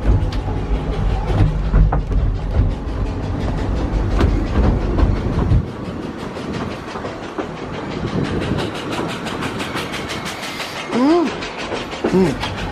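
A narrow-gauge steam train carriage on the move: running rumble and wheel clatter on the rails. The heavy low rumble drops away about halfway through, leaving a fast, regular ticking, and two short pitched sounds come near the end.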